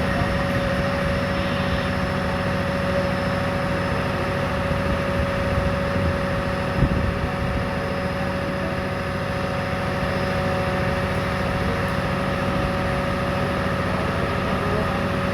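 Fire engine running steadily at close range, a constant engine hum with a steady whine over it. A single knock about seven seconds in.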